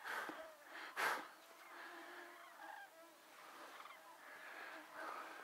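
A flock of common cranes calling in flight overhead, many short trumpeting calls overlapping. Two brief bursts of noise come in the first second or so, the louder about a second in.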